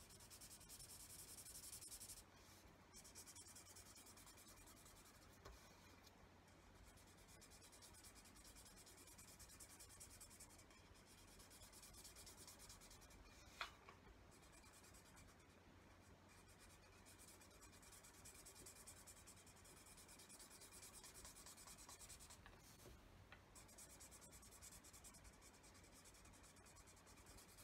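Faint, steady scratching of a yellow felt-tip pen rubbed over paper while colouring in, with brief pauses as the pen lifts. There is one small click about halfway through.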